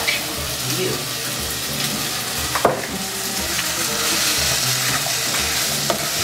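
Chicken and chickpeas sizzling in a saucepan while a spoon stirs them, with small clicks and scrapes against the pot and one sharper knock about two and a half seconds in.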